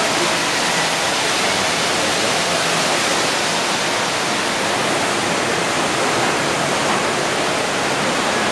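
Decorative indoor water fountain: water falling steadily into a pool, an even, unbroken splashing.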